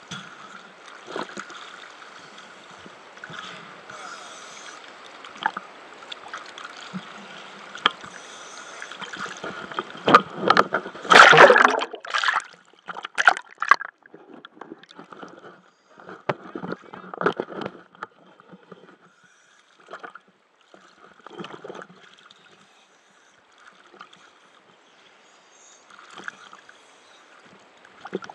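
Water sloshing and gurgling around the microphone, with scattered knocks and a loud rush of splashing about ten seconds in.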